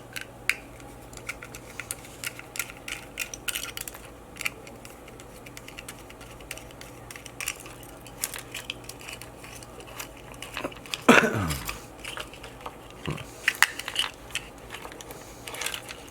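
Hand tools and small plastic and metal parts of a spider-wrap security alarm tag being pried and handled during a teardown: a run of small clicks, taps and clinks, with one louder sound about eleven seconds in that falls steeply in pitch.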